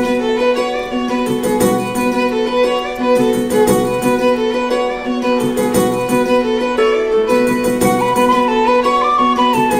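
Background music: a fiddle melody over a steady drone with a regular beat.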